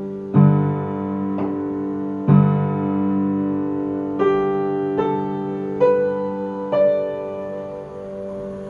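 Piano played slowly, notes struck and left to ring over held low bass notes. Over the second half, single notes climb step by step, about one a second.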